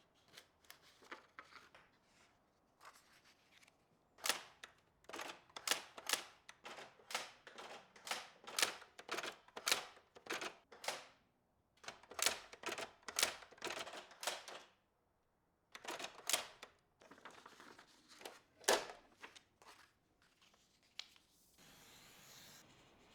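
Typewriter keys struck one at a time in an uneven rhythm of about two or three sharp clacks a second, with short pauses between runs, then a faint steady rustle near the end.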